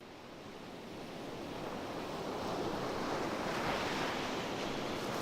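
Recorded sound of ocean waves washing on a shore, a steady rushing that fades in and grows louder.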